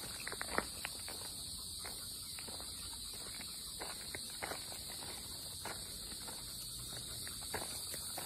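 A steady, high-pitched chorus of insects in summer woodland, with irregular soft crackles of footsteps on the forest floor.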